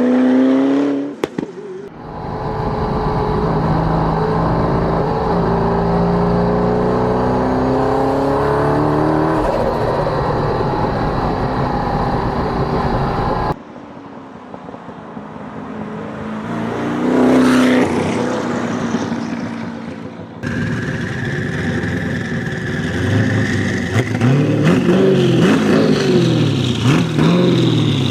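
Hypercar engine heard in several cut-together clips: running hard at high revs with pitch glides, a quieter stretch with a single rev up and down, then a quick series of throttle blips rising and falling near the end.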